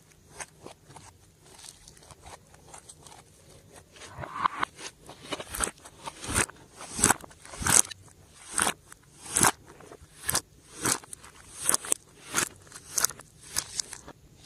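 Glossy slime being squished and folded by hand, letting off sharp crackling pops of trapped air. A few faint clicks at first, then from about four seconds in a steady run of loud pops, roughly one or two a second.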